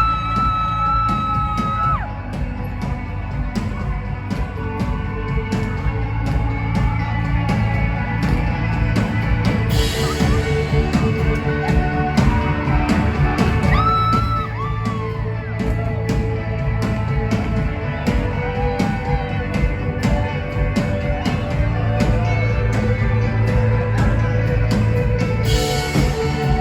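Indie rock band playing live: drums, bass and guitar with a sung vocal line, loud and steady.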